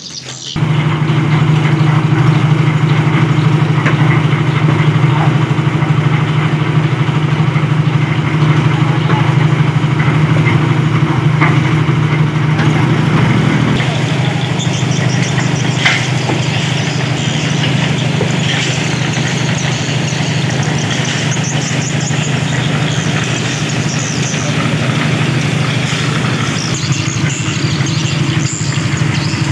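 Small engine of a portable concrete mixer running steadily at an even speed.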